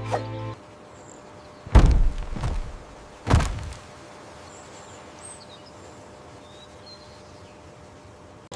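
Two heavy thuds about a second and a half apart, each with a low rumbling tail, then a faint steady outdoor ambience with a few faint bird chirps.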